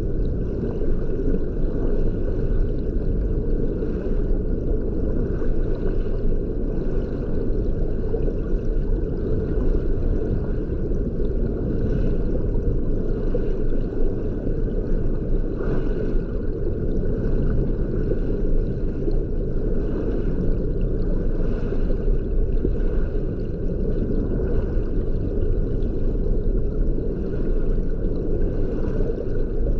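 Steady, muffled low rush of water heard underwater, with a few faint soft swells.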